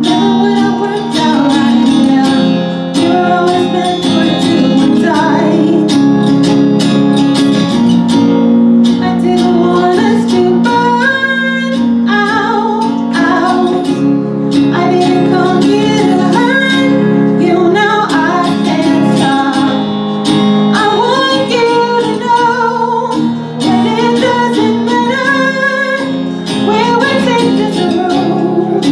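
A woman singing live over her own strummed acoustic guitar. The voice carries a bending melody over steady, ringing chords.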